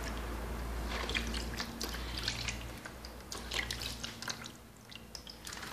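Water splashing and dripping in a plastic basin as hands rub shampoo into a wet kitten's fur, with irregular small splashes and squelches that thin out near the end.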